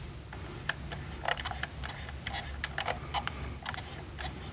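Irregular light clicks and ticks of tweezers working a vinyl decal onto the plastic climate-control buttons, over a steady low hum.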